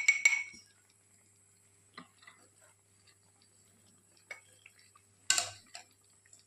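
Metal kitchen utensils clinking: a spoon knocks on metal right at the start, taps faintly a couple of times, then gives a sharp ringing clink about five seconds in.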